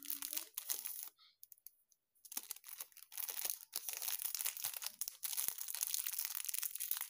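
Small clear plastic packet crinkling and crackling in the fingers as it is worked open. The crinkling stops for about a second shortly after the start, then resumes.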